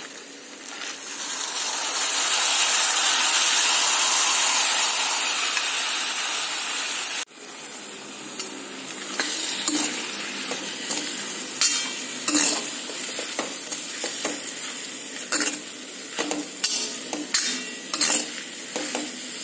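Washed, still-wet sprouted pulses poured into hot oil and fried spices in a metal kadhai, hissing in a loud sizzle that builds over the first two seconds and cuts off suddenly about seven seconds in. After that a quieter sizzle goes on under the scrape and clink of a steel ladle stirring the sprouts.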